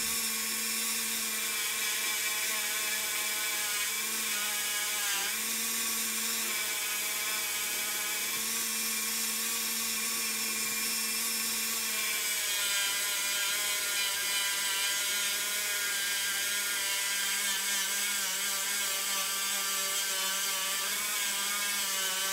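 Small rotary tool running continuously with a felt buffing wheel, polishing a die-cast car's metal base with Flitz polish. A steady high whine that shifts slightly in pitch about halfway through.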